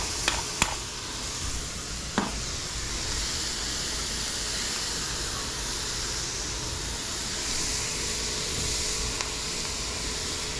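Smashed beef patties, topped with thin-sliced onions, sizzling steadily on a very hot griddle. A few quick pepper-grinder clicks come in the first second and a single knock about two seconds in.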